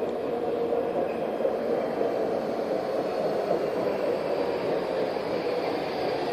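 Baltimore Metro Subway train running in along the rails as it pulls into the station: a steady, even noise with no sharp events.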